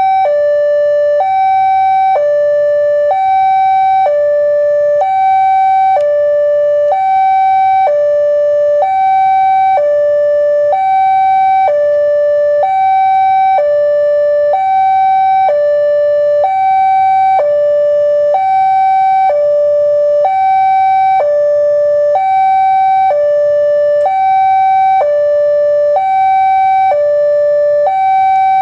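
Railway level-crossing alarm sounding a loud electronic two-tone warning, a higher and a lower tone alternating about once a second without a break. It is the signal that a train is approaching the crossing.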